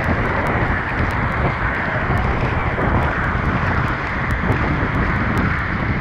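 Kawasan Falls waterfall pouring into its plunge pool at close range, a steady, loud, muffled rush of falling water and spray beating on the camera.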